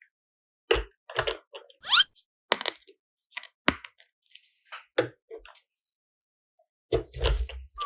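A series of short, separate clacks and knocks, about a dozen, with a brief rising whoop about two seconds in and a cluster of heavier knocks near the end.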